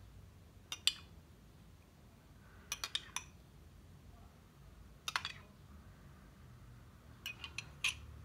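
Metal teaspoon clinking against a drinking glass as it scoops out a coffee-and-milk soak, in short groups of two to four clinks every two seconds or so.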